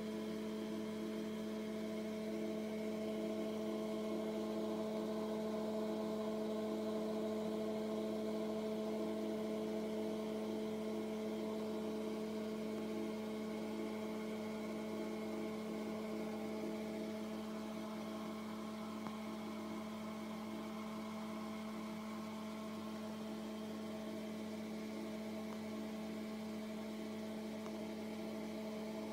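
Steady machine-like hum: one low tone with several higher tones stacked above it, unchanging.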